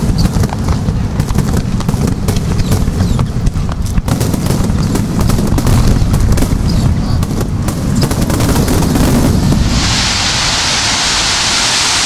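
Aerial fireworks shells bursting in a rapid starmine barrage: dense booms and crackles one after another. About ten seconds in the booms stop abruptly and a steady hiss takes over.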